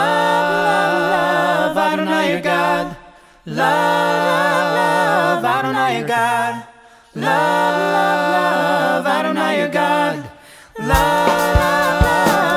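A cappella singing by a group of voices in harmony: three long phrases of held, wavering notes with short breaks between them. A drum kit comes in near the end.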